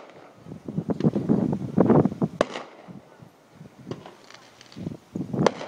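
Fireworks going off: two sharp cracks of bursting shells, about three seconds apart, among clusters of lower thumps and crackling.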